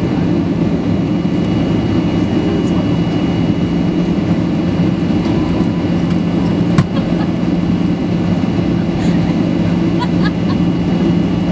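Cabin noise inside a Boeing 737-800 taxiing: its CFM56 engines at low thrust give a steady hum with a constant low tone and a faint high whine. There is one brief knock about seven seconds in.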